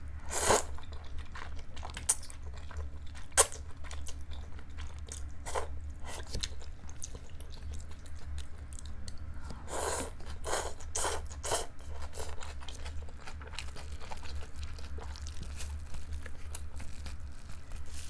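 Close-up mouth sounds of someone eating chilled liangpi wide noodles: short wet clicks of chewing and crunching throughout. There are louder clusters of slurping as noodles are sucked in, about half a second in and again about ten seconds in.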